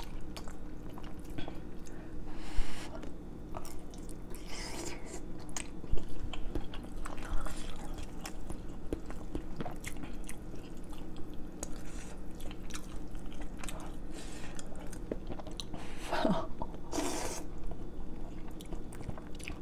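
Close-up chewing of noodle soup with chicken, with many small wet mouth clicks. Near the end come two longer slurps as a mouthful of yellow and thin rice noodles is sucked in.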